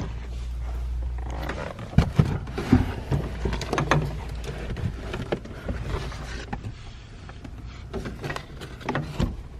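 Handling noises inside a small car: a low rumble for the first second or so, then a run of knocks, taps and rustling, with a few more knocks near the end, as a person moves about in the cabin fitting a door panel.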